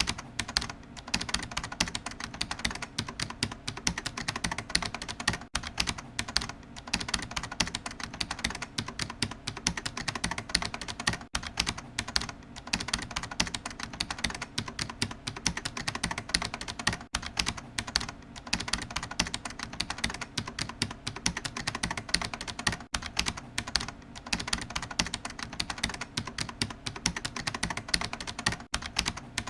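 Fast, continuous typing on a computer keyboard: a dense patter of key clicks with only a few brief pauses.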